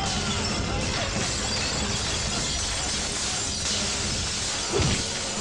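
Many glass bottles shattering and crashing at once, a continuous spray of breaking and tinkling glass, with a sharper, louder hit near the end.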